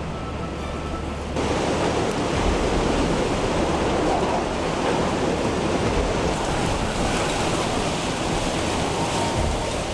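Strong wind rushing and buffeting, growing suddenly louder about a second and a half in.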